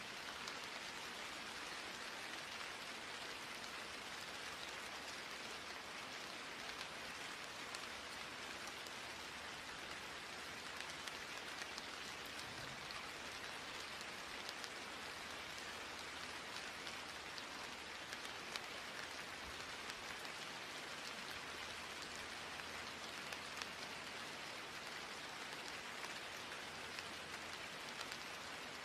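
Steady rain, an even hiss with scattered light drop ticks.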